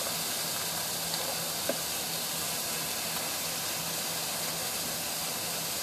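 Chuck shoulder steak searing in a hot frying pan: a steady sizzle, with one faint tick about two seconds in.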